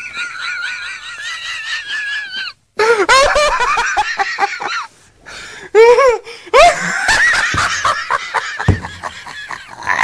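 A male radio presenter in a helpless fit of laughter: a long high-pitched wavering squeal for about two and a half seconds, then rapid bursts of ha-ha laughter broken by short gasping pauses.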